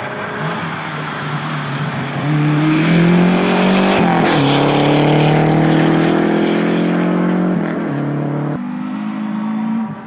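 Rally car engine accelerating hard on a gravel stage, rising in pitch over the first few seconds, then its pitch drops sharply about four seconds in as it passes and it pulls on again. A little past eight seconds the sound switches abruptly to a quieter car engine.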